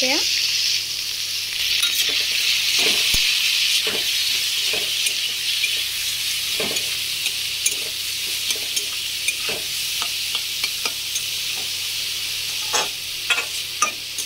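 Chopped vegetables sizzling in hot oil in a metal kadai while a metal spatula stirs them. The spatula scrapes and taps against the pan many times at an uneven pace over a steady frying hiss.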